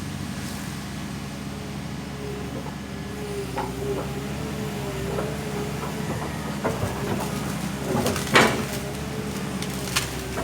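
Backhoe engine running steadily with a wavering whine over it. From about six seconds in come scattered cracks and knocks, the loudest about eight seconds in, as the machine breaks up a tree.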